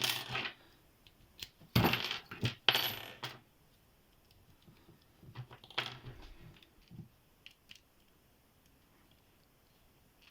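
Small metal padlocks clinking and clattering as they are handled and set down, in a few short bursts in the first half, then a few faint ticks.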